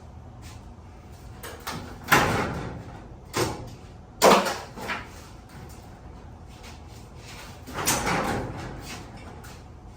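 A damaged sectional garage door being handled: a series of loud bangs and knocks, about five, the loudest a little past four seconds in and a longer one near eight seconds.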